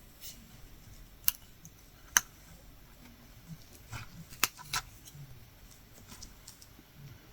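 Latch hook tool working yarn into rug canvas: a handful of sharp clicks, spaced irregularly, with faint rustling of yarn and canvas between.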